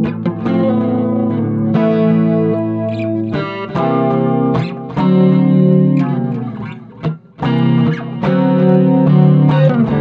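Improvised guitar music: plucked notes and chords left ringing, with a short dip in the playing about seven seconds in.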